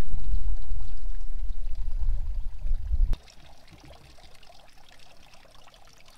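Wind buffeting the microphone as a loud low rumble, cutting off suddenly about three seconds in. After that comes a much quieter faint trickle of water.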